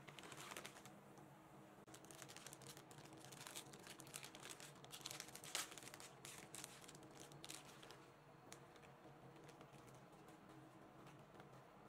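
Plastic packet of chocolate-cream wafer rolls crinkling and tearing open in gloved hands, faint, with a sharper crackle about five and a half seconds in; after about eight seconds only a few light clicks remain.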